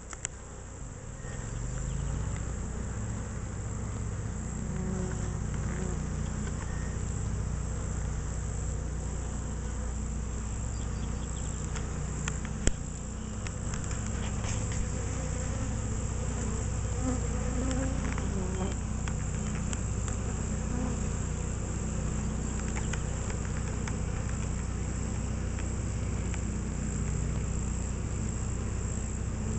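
Honeybees at a hive entrance: a steady, continuous low buzz from many bees flying and crawling at once. One sharp click about halfway through.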